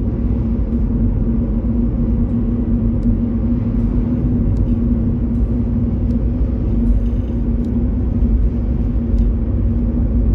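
Steady road and engine noise inside a moving car's cabin: a low rumble with a constant drone.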